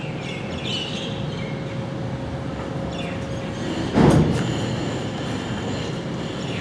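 Steady, distant rumble of a jet airliner, with a few bird chirps in the first second. A single sharp thump about four seconds in is the loudest sound.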